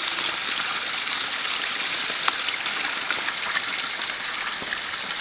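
Spring water trickling and splashing out from among roots and rocks into a small pool at a stream's source: a steady watery hiss.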